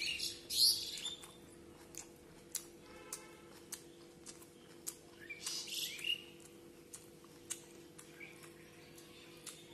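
Birds chirping in quick runs of short rising chirps near the start and again around the middle, over a steady low hum. Scattered single clicks of chewing and lip smacking come from someone eating rice and fish by hand.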